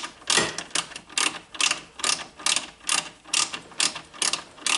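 Hand ratchet wrench worked back and forth in short strokes, about two to three a second, loosening a nut: the ratchet's pawl clicks on each return swing.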